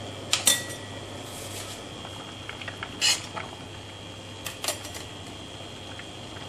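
Metal utensil clinking against a stainless steel pan while stirring noodles in hot water: a sharp clink about half a second in, another around three seconds in, and two more near the middle. A steady faint high whine runs underneath.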